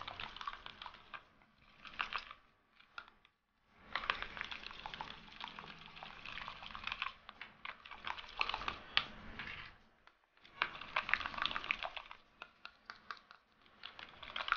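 Hand-beating thin matcha flour batter in a bowl: quick clicking and scraping of the utensil against the bowl with wet slapping of the batter, in spells broken by short pauses. The batter is being beaten smooth to break up lumps.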